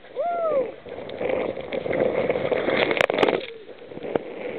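Waves and spray splashing over the bow of a fishing boat in rough seas. A short tone rises and falls near the start, and two sharp knocks come about three seconds in.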